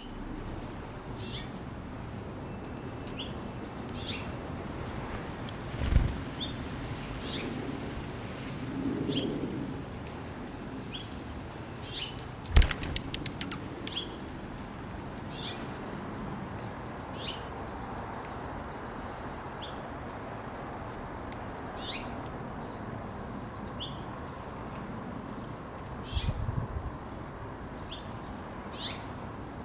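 Small backyard birds giving short, high chip notes every second or two over a steady outdoor background, broken by a couple of sharp thumps and brief fluttering noises.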